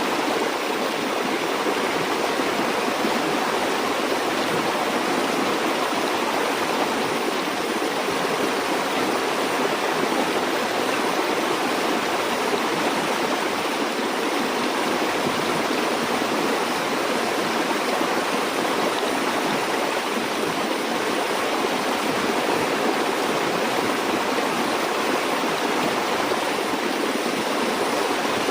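River or stream water flowing steadily, an even rushing hiss with no distinct splashes or changes.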